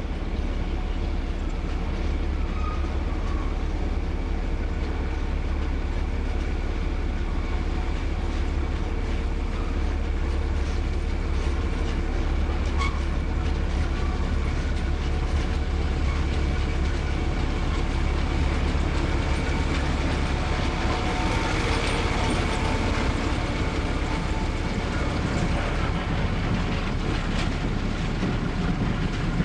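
Diesel locomotive hauling a train of bulk tank wagons slowly past, its engine giving a steady low hum. The wagon wheels click over the rail joints as the tanks roll by, thickest about two-thirds of the way through.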